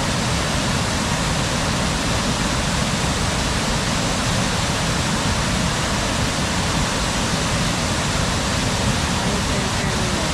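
Waterfall: water falling and splashing in a steady, loud, even rush.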